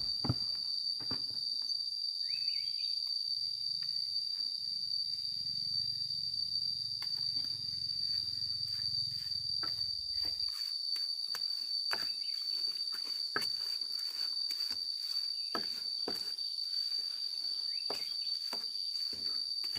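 Insects droning on one steady high pitch, with scattered light clicks and taps. A faint low hum stops about halfway through.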